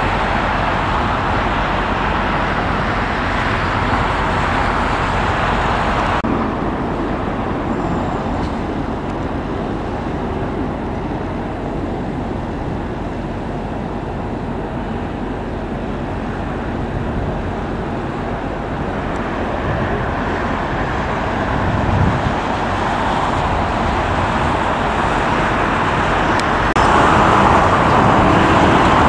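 Jet airliner engines running as the aircraft taxi, a steady rushing noise that changes abruptly about six seconds in. Near the end it grows louder as a jet departs on takeoff power.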